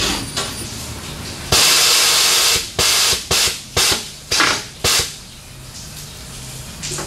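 Compressed air hissing into a tire on a tire changer, reinflating it after the tire has been turned on its wheel to match-mount it. One long blast of a little over a second, then five short bursts.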